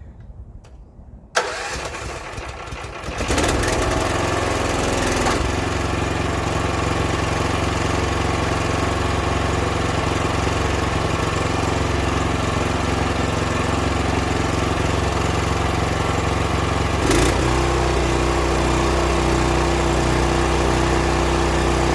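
Pressure washer's gas engine starting, coming up to speed over about two seconds and then running steadily. About seventeen seconds in the sound shifts and a steady hum joins the engine.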